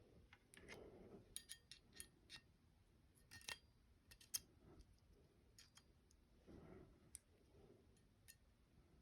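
Faint, scattered clicks and light metallic clinks of Glock 29 pistol parts being handled during takedown or reassembly. A dozen or so small ticks, some with a brief ring, over soft rustling of hands on the parts.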